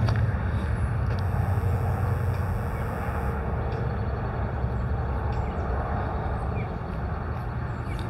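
Steady low rumbling noise, loudest at the start and easing slightly toward the end.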